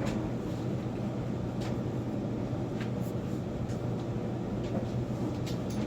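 Steady low mechanical hum and rumble, with a few faint clicks scattered through it.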